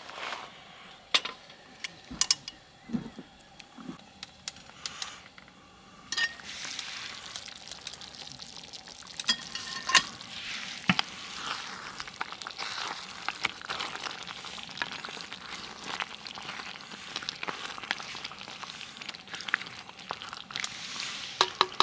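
Food frying and sizzling in a pan, with scattered clinks and taps of a metal utensil. The sizzle turns into a steady hiss about six seconds in.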